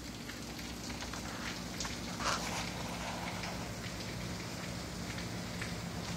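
Scattered, irregular taps of water drops over a steady low hum, the loudest tap a little over two seconds in.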